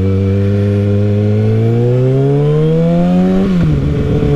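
Kawasaki 636 sport bike's inline-four engine pulling hard through a gear, its pitch rising steadily. About three and a half seconds in it drops sharply on an upshift, then holds steady at lower revs.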